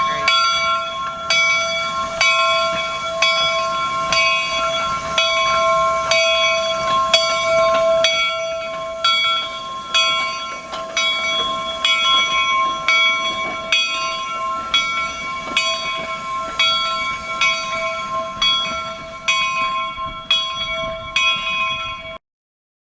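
Steam locomotive bell ringing steadily, struck about every two-thirds of a second so that each stroke's ring carries into the next; it cuts off suddenly near the end.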